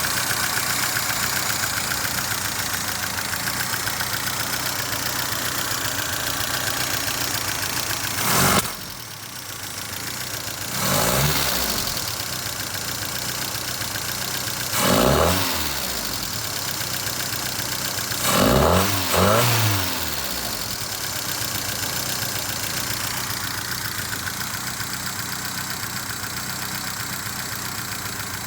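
1978 Fiat 124 Spider's twin-cam four-cylinder engine idling roughly, the idle the owner is trying to diagnose. About a third of the way in it drops sharply. It is then revved briefly, rising and falling, about four times over the next ten seconds, and settles back to a steady idle.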